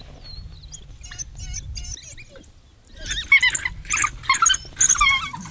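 African wild dogs giving high-pitched twittering calls: faint at first, then a loud, rapid string of chirps from about three seconds in, the excited social twitter of the pack.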